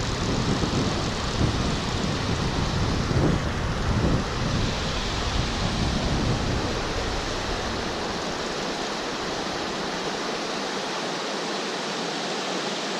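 Steady rushing of a mountain stream's water, with an uneven low rumble through the first half that settles into an even rush.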